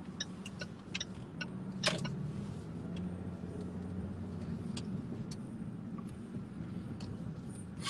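Steady low hum of a car's engine and road noise heard inside the moving car's cabin, with a few short clicks and taps, the loudest about two seconds in.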